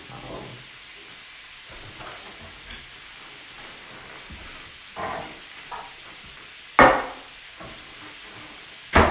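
Bacon sizzling slowly in a pan on low heat as its fat renders, a steady hiss. Three sharp knocks cut across it about five, seven and nine seconds in, the last two the loudest.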